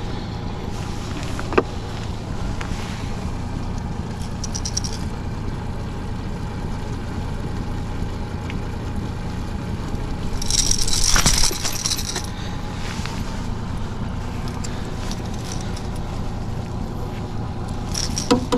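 Honda 30 hp four-stroke outboard running steadily at low trolling speed. A few light clinks come about four to five seconds in, and a brief louder rush of hissing noise about ten seconds in.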